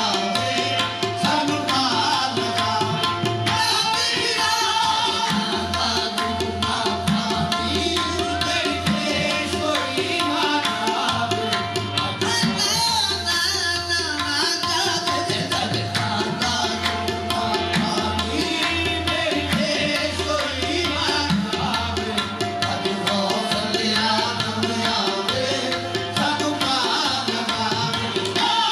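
Qawwali music: tabla drumming a steady rhythm under a singing voice.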